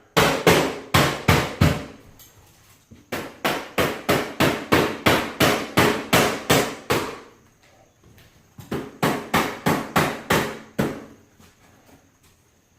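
Hammer blows in three quick runs of steady strikes, about three a second, with short pauses between the runs.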